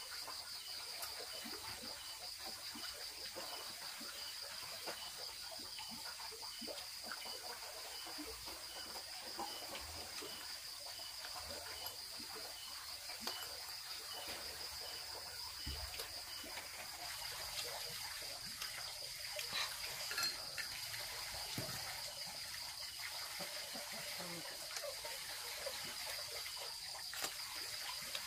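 Water trickling and splashing with small clinks of kitchenware, over a steady high-pitched hum.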